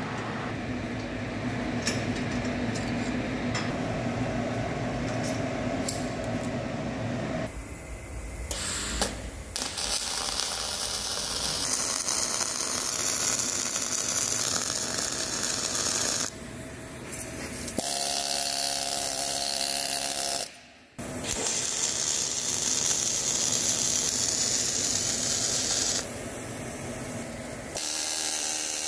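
Wire-feed (MIG) welding arc crackling and sputtering on steel, in several separate runs that start and stop abruptly.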